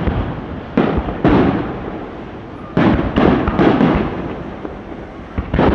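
Fireworks shells bursting: about half a dozen sharp bangs in uneven succession, each trailing off in a rumbling echo.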